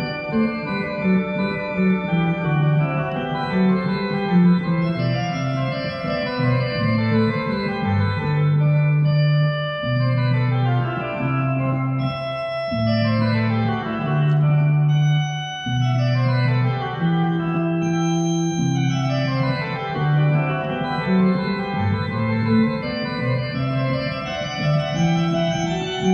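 Organ playing an 18th-century English voluntary: fast scale runs in the upper part sweep down and back up over a moving line of sustained bass notes.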